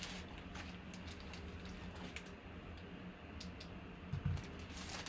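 Scattered light clicks and crinkles of plastic wrap being handled around a wooden baseball bat, with a soft thump about four seconds in, over a low steady hum.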